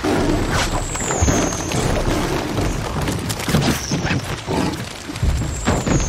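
Film sound mix of a swarm of flying fish striking a lifeboat and the sea: many quick thuds and splashes over rushing water, with musical score underneath and a deep boom now and then.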